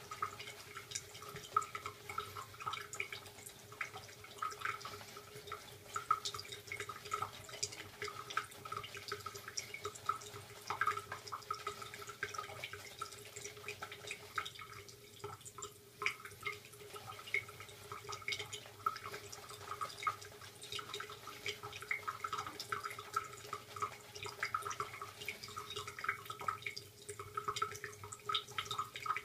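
Bathroom sink tap left running at a thin trickle, with irregular dripping and splashing.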